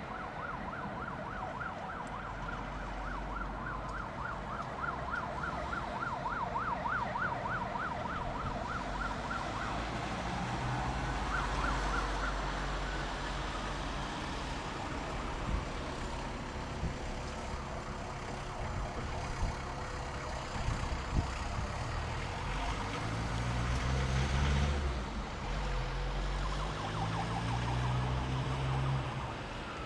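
Emergency vehicle sirens: a rapid up-and-down warble for about the first ten seconds, a slower rising and falling wail around twelve seconds in, and the rapid warble again near the end. Vehicle engine rumble, rising in pitch, comes in underneath from about twenty seconds in.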